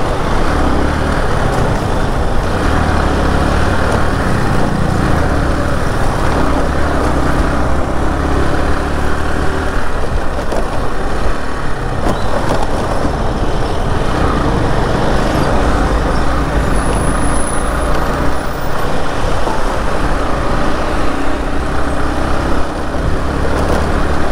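Motorcycle riding noise picked up by a clip-on mic: the bike's engine running with tyre and road noise on rough concrete, as a steady low rumble, with a truck's engine close ahead in traffic.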